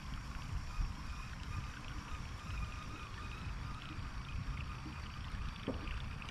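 Quiet ambience on a pond heard from a kayak: a steady low rumble of wind on the microphone and faint water sounds, with short faint high chirps scattered through.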